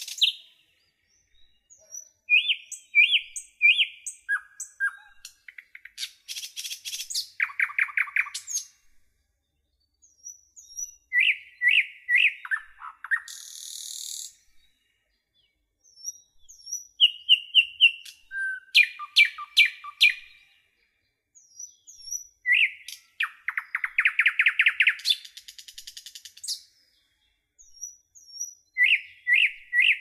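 Songbirds singing in short, varied phrases: runs of repeated whistled notes, fast trills and a few brief high hissy notes, with stretches of dead silence between phrases.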